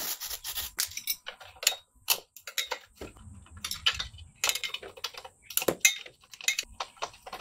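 A brief hiss of aerosol spray on the exhaust flange nuts. Then a steel spanner clicks and clinks irregularly against the 15mm flange nuts and studs as they are worked loose.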